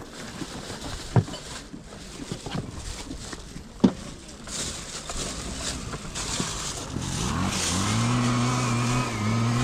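Outdoor background with a couple of sharp knocks, then about seven seconds in a vehicle engine comes in nearby, rising in pitch and then running steady.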